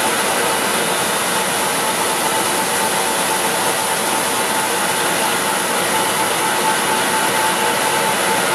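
Blanchard #27-48 48-inch vertical-spindle rotary surface grinder running, its rotary table turning under the wheel head with coolant: a steady, even hiss with a faint steady whine.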